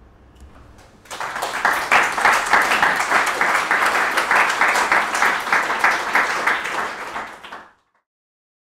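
Audience applauding: a crowd of rapid, uneven claps that starts about a second in and cuts off suddenly near the end.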